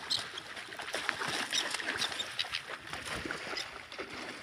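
Water lapping and splashing against the hull of a small fishing boat drifting at sea, a run of small irregular splashes and clicks.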